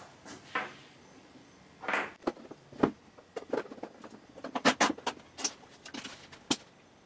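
Plastic gas can and its spout being handled and readied to pour: a scattered run of sharp clicks and light knocks, coming thicker in the second half.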